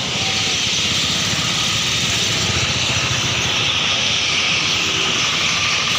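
Dense, steady chirping of a huge flock of birds roosting in one tree, thousands calling at once into an unbroken chatter, with a low rumble underneath.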